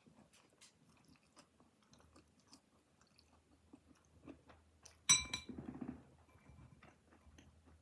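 Close-up chewing and biting of pizza, with small wet mouth clicks. About five seconds in comes a louder sharp bite, followed by about a second of heavier chewing.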